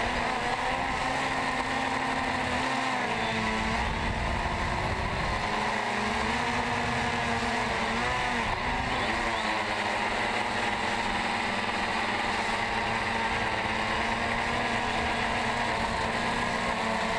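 DJI Phantom 2 quadcopter's four motors and 9-inch carbon-fibre propellers buzzing loudly in flight, heard from the camera mounted on the drone itself. The pitch of the hum wavers up and down as the throttle changes, most noticeably about three seconds in and again around eight seconds.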